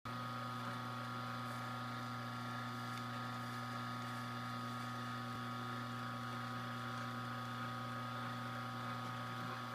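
Electric slow (masticating) juicer running steadily: a constant low motor hum with a higher steady whine above it.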